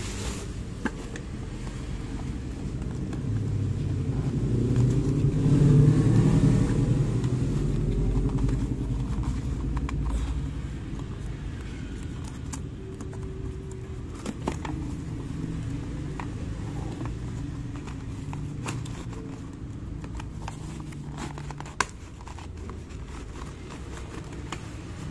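A motor vehicle passes by, its engine noise swelling to a peak about six seconds in and then fading. Scattered crinkles and clicks come from a plastic-wrapped parcel and cardboard boxes being handled.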